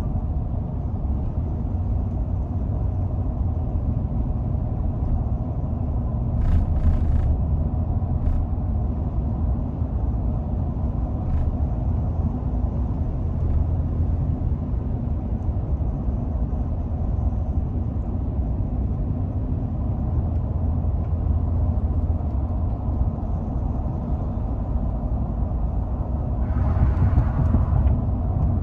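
A 2016 Ford F-150 pickup heard from inside the cab while driving: a steady low rumble of road and drivetrain noise. A few short clicks come about a third of the way in, and a louder brief rasping rattle comes near the end. This is the rattling or typewriter noise the owner hears between 40 and 60 mph, cause not yet identified.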